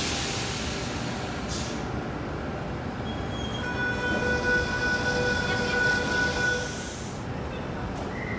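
A Sydney Trains Tangara electric train standing at the platform: a short hiss of air about a second and a half in, then a steady whine of several tones from the train's equipment that dies away near the end.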